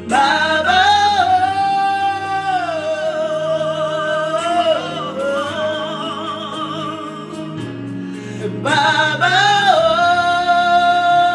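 Worship music: a solo voice sings long, drawn-out wordless notes with vibrato, entering right at the start and again near the end, over sustained chords.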